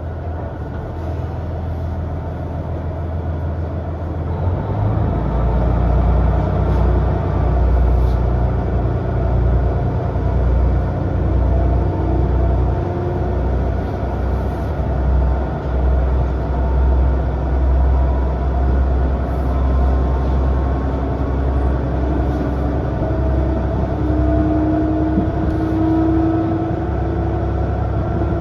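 JR KiHa 110 series diesel railcar running, heard from inside the car: a deep engine rumble that grows louder about five seconds in, with a slowly rising whine as the train gathers speed.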